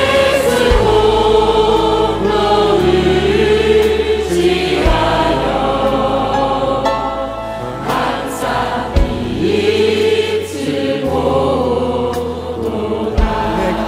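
Large congregation and choir singing a hymn together with piano and orchestral accompaniment, in slow, long-held chords that change every couple of seconds.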